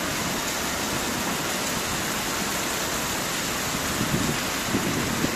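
Heavy downpour falling steadily, an even hiss of rain with no breaks.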